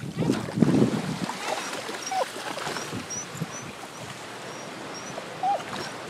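Pit bull whining a few short, falling whines over the wash of surf, with a gust of wind on the microphone in the first second.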